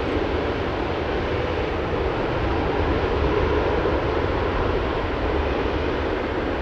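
Four Rolls-Royce Trent 970 turbofans of an Airbus A380-841 running at takeoff power as the airliner rolls down the runway away from the listener: a steady jet rumble with no breaks.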